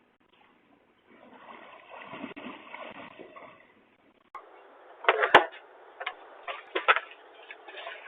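A few seconds of rustling noise, then a series of sharp knocks and taps close to the microphone, the loudest two about five seconds in, all with the thin, muffled sound of a doorbell camera's microphone.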